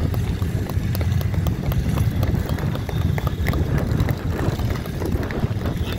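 Several vintage motorcycle engines running as the bikes ride along the beach: a steady low sound with rapid exhaust pops.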